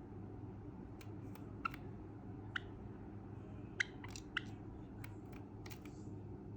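Cinnamon Java sparrow making scattered short clicks and brief chirps, about ten over several seconds, over a low steady hum.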